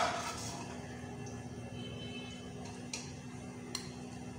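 A metal utensil strikes a cooking pot with a sharp, ringing clink at the start, followed by two faint clicks over a steady low hum.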